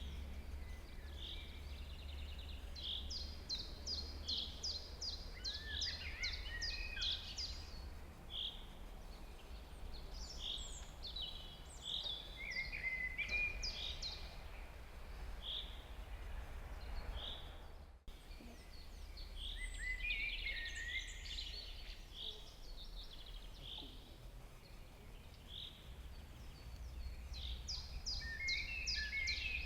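Songbirds singing: repeated short high notes, quick trills and falling whistles, over a low steady rumble. The sound drops out for an instant about two-thirds of the way through, then the birdsong resumes.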